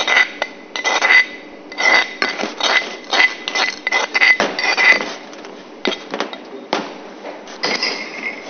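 A metal spoon knocking and scraping against a stainless-steel mixing bowl in irregular strokes, a little more than one a second, the bowl ringing briefly after each knock. Ground spice paste is being scraped from a stone mortar and worked into mashed tempe.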